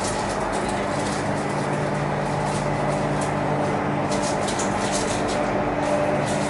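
CR400BF high-speed train's traction motors whining on several steady tones over the rumble of the train running at speed, with scattered light clicks.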